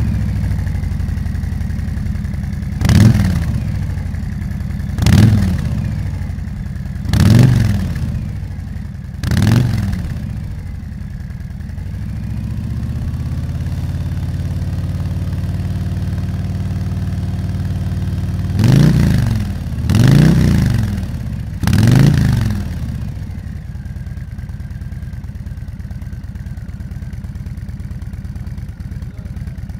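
Harley-Davidson Sportster S's Revolution Max 1250 V-twin idling through a Zard 'Top Gun' slip-on exhaust, blipped four times in the first ten seconds and three times in quick succession about two-thirds of the way through, each rev falling straight back to idle.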